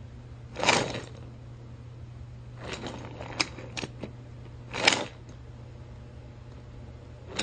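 Three short clattering knocks with a few sharp clicks between the second and third, over a steady low hum.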